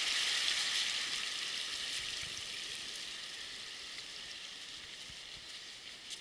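Mountain stream rushing over rocks, a steady hiss that fades gradually as the listener moves away from it.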